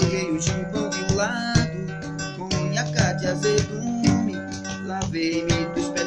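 Music: an acoustic guitar strumming a steady, even rhythm, the accompaniment of a song between sung lines.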